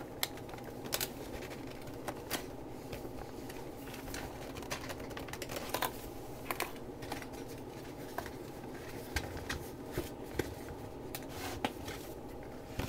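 Keyboard packaging being handled and worked open by hand: scattered, irregular clicks and small scrapes over a steady low hum.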